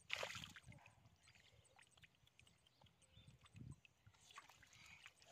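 Faint squelching and splashing of hands groping through shallow mud and water, with one short, louder splash just after the start.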